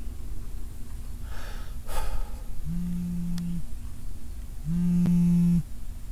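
A mobile phone vibrating with an incoming call: a steady low buzz in pulses about a second long, twice, with a third starting at the very end. A short breathy gasp comes just before the buzzing begins.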